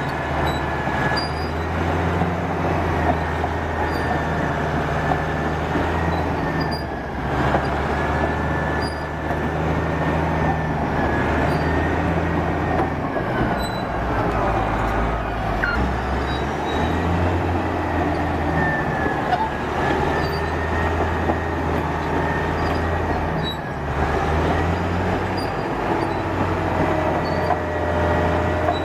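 Caterpillar D8R bulldozer's diesel engine running, its low note shifting several times, with a thin high squeal wavering above it.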